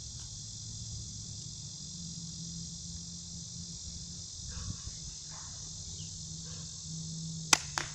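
Crickets chirping steadily, with a low hum beneath. Near the end an airsoft gun is fired: two sharp cracks about a third of a second apart, the shot hitting the target.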